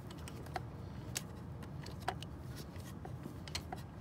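Light, irregular metallic clicks and taps of a socket wrench on a starter-mounting bolt that is being turned by hand, over a steady low hum.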